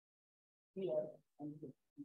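Silence, then a man's voice speaking softly in three short broken fragments.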